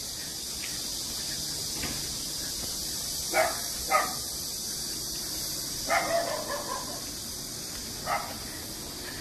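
Dogs barking in short separate barks: two single barks about three and a half and four seconds in, a quick run of barks around six seconds in, and one more near the end.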